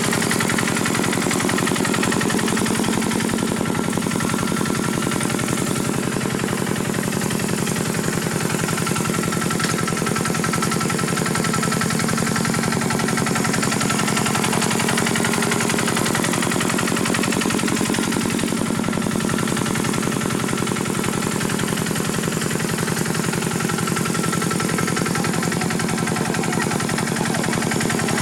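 Single-cylinder diesel engine of a Khmer hand tractor running steadily, a rapid even chugging.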